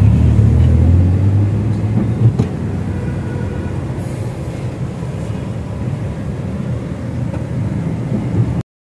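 A car's engine running, heard from inside the cabin as a steady low rumble with street traffic outside; the rumble is heavier for the first couple of seconds, then settles.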